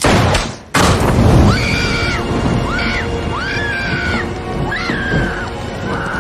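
A pistol shot about a second in, ringing out as it dies away, followed by a dramatic film score of high notes that swell and slide up and down about once a second.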